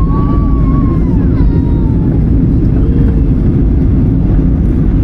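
Airliner cabin noise on the landing approach: a loud, steady low rumble of engines and airflow, with faint voices in the background.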